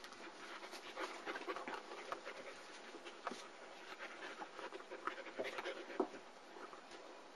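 Young German Shepherd puppy panting close to the microphone, with irregular soft rustling noises.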